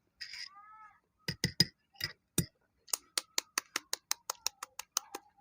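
Balut eggshell being tapped to crack it: a few heavy knocks, then a quick, even run of light taps, about five a second.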